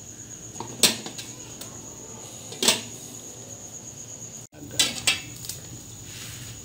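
Aluminium pot lid knocking and clinking against the pot as it is handled: sharp single knocks about a second in and near three seconds, then two quick ones around five seconds as the lid comes off.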